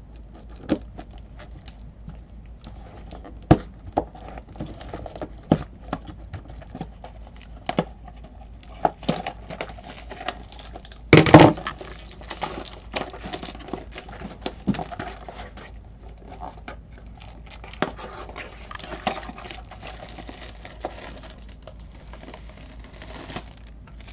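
A cardboard trading-card box being opened and handled, with a series of sharp taps and clicks, a louder rustle about halfway through, then crinkling of the clear plastic wrapping as the packs are pulled out.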